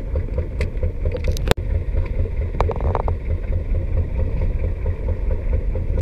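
Fishing boat's engine idling, a steady low pulsing throb. A few sharp clicks come about a second and a half in, and a short clatter of clicks near three seconds.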